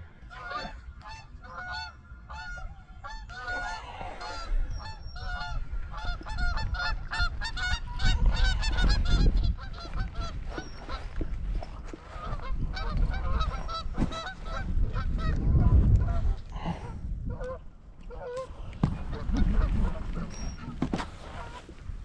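A flock of birds honking over and over, several short calls a second, with no let-up. A few low rumbles on the microphone swell up and die away; these are the loudest moments.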